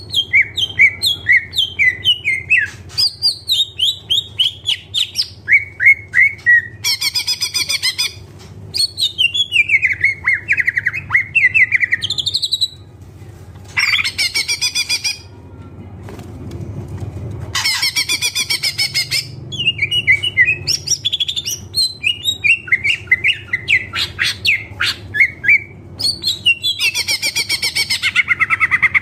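Green leafbird (cucak ijo) singing nonstop: quick runs of chirping, sliding notes broken every few seconds by short harsh buzzy trills, a song full of mimicked fill-in phrases.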